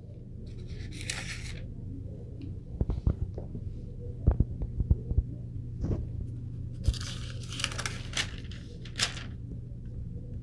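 Paper pages of a Bible rustling as they are turned, in several short bursts with scattered small clicks, over a steady low hum.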